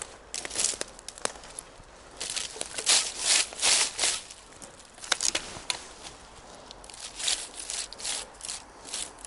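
Irregular bursts of crackling and rustling, as forest-floor leaves and soil are disturbed, with a busier stretch from about two to four seconds in and another near the end.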